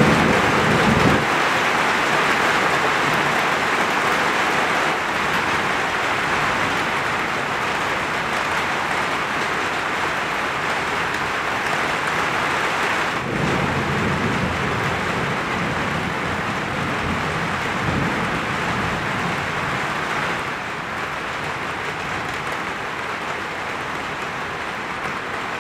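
Steady rain hissing during a thunderstorm, with the tail of a thunder rumble dying away in the first second. Softer low rumbles swell up around the middle, and the rain gets a little quieter near the end.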